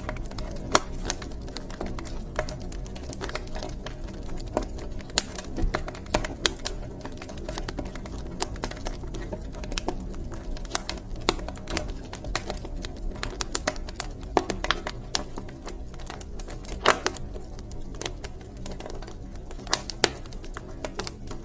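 Wood fire crackling in a fireplace: irregular sharp pops and snaps over a steady low rumble of the burning.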